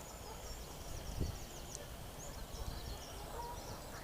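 Small birds singing high and twittering in quick phrases, over a low steady rumble.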